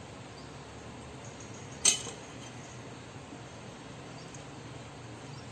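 A single sharp clink of a steel ladle striking metal cookware about two seconds in, ringing briefly, over a faint steady low hum.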